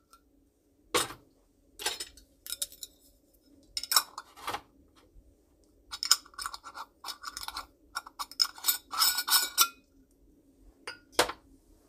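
Metal screw-on lids being twisted onto small glass juice jars: scattered clinks of lid and glass, and a quick run of short scraping strokes in the middle as a lid's threads are turned down on the jar.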